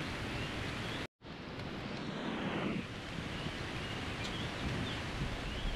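River water rushing in a steady noisy wash, briefly cutting out for an instant about a second in.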